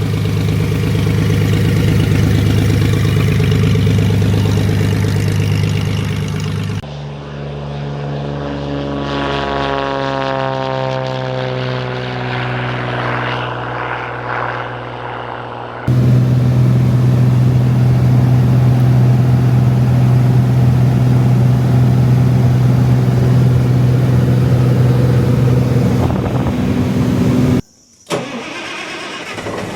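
Light aircraft's engine running, cut together from several clips: a steady drone, then a stretch where the pitch climbs as the engine revs up, then a louder steady drone, with a short break near the end.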